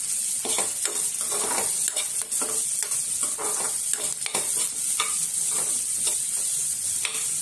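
Chopped onions sizzling in a nonstick kadai while a steel spoon stirs them in repeated scraping strokes, roughly two a second, over a steady frying hiss.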